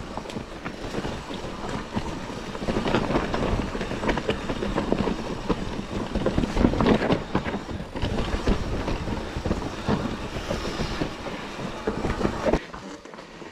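Mountain bike riding down a rough trail, rattling and clattering over bumps and rocks with a dense run of knocks; the noise drops off sharply about a second before the end.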